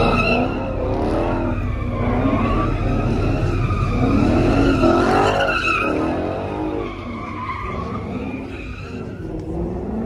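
Car doing donuts: tyres squealing with a wavering pitch over the engine revving, easing off about seven seconds in.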